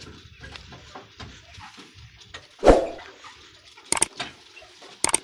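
Faint rattle of a loaded camel cart moving along a dirt track. A loud short thump comes about two and a half seconds in, and then two sharp mouse-click sound effects near the end, from the pop-up subscribe-button animation.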